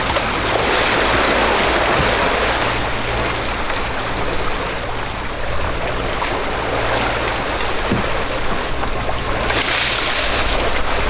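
Sea water rushing and splashing along a sailboat's hull under way. Near the end there is a louder splash of water lasting about a second and a half.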